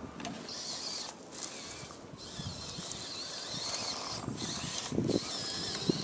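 Axial SCX24 micro RC crawler's small electric motor and gears whining in three stretches with short breaks as it drives over dirt, the pitch wavering with the throttle.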